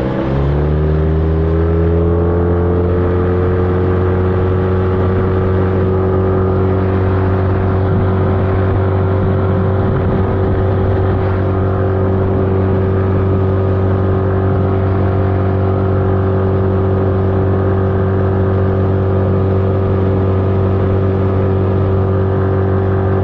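Boat's outboard motor opening up, its pitch rising over the first second or two, then running steadily at a constant pitch.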